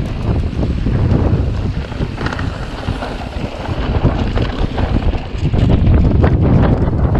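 Wind buffeting the microphone over the rumble of a mountain bike descending a loose, dusty dirt trail at speed, with frequent short knocks and rattles from the tyres and bike on the rough ground. It gets a little louder after about five and a half seconds.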